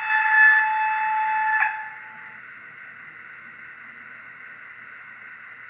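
A steady, high-pitched whistle that cuts off suddenly with a click about a second and a half in, leaving a steady, quieter hiss.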